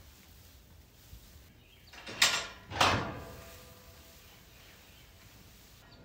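Two loud metal clanks about half a second apart, each followed by a short ring: a steel pipe-panel stall gate or hay feeder being knocked as hay is shoved against it.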